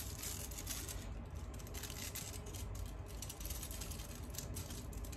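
Cellophane being cut with scissors and handled: a continuous scatter of faint crinkles and small snips over a low steady hum.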